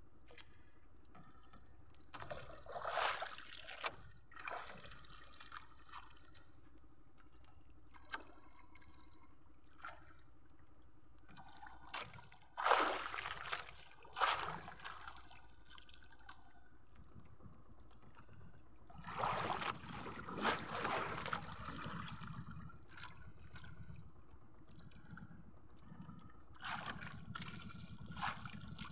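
Water sloshing and splashing against the hull of a small fishing boat drifting with its engine off, in irregular surges several seconds apart over a low steady hiss.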